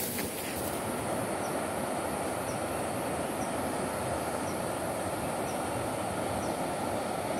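Steady rushing roar of whitewater river rapids heard from the valley side, with faint high ticks about once a second.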